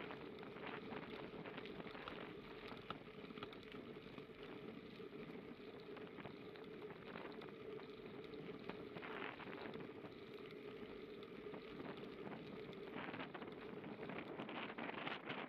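Bicycle tyres rolling over a fine gravel path: a steady crackling hiss with a low steady hum underneath, and brief louder rushes about nine seconds in and again near the end.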